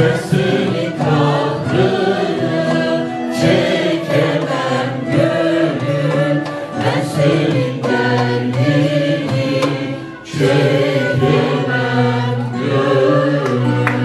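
Turkish folk song (türkü) sung by a male soloist with a choir, accompanied by plucked saz (bağlama) and a frame drum. The singing breaks off briefly about ten seconds in, then comes back.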